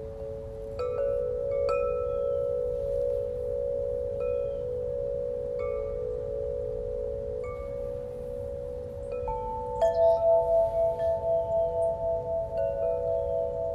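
Ringing chime tones: several long, bell-like tones that waver as they sustain, with short, higher chime notes scattered over them. New low tones are struck about a second in and again near ten seconds in, the second with a strong pulsing waver.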